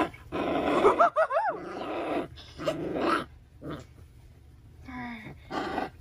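Four-week-old Cane Corso puppies growling and whining as they squirm against a person's lap, with a couple of short high whines about a second in. It goes quieter after about three seconds.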